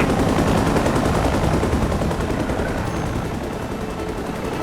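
Sound effect of a science-fiction flying craft's engines: a loud, dense crackling rumble that swells at once and slowly fades away.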